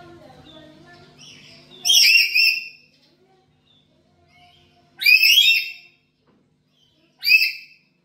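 Black-capped lory calling: three loud, harsh calls, the first a double call about two seconds in, the next about five seconds in, and a shorter one near the end.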